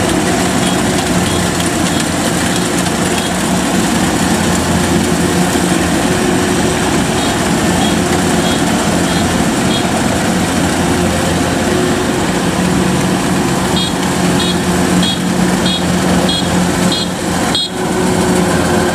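Kubota DC-93 Extra rice combine harvester running steadily under load as it harvests, its diesel engine and threshing works giving a continuous low hum. Short high chirps repeat a little under twice a second in three stretches, the last ending about three-quarters of the way through.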